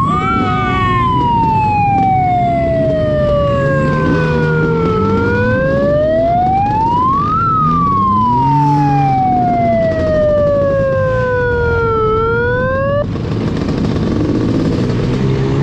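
Wailing siren whose pitch sweeps slowly up and down, rising for a couple of seconds and falling more slowly, several times over. It cuts off suddenly about 13 seconds in, leaving engine noise.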